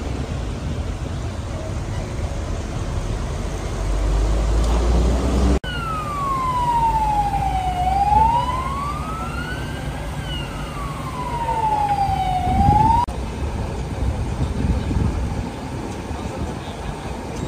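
Emergency vehicle siren in a slow wail, sweeping down, up and down again over about seven seconds before cutting off abruptly, over a steady low rumble of street traffic and idling engines.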